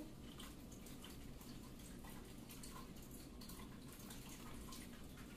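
Very quiet room tone with faint, soft sipping and mouth sounds as white wine is tasted, and a few small ticks.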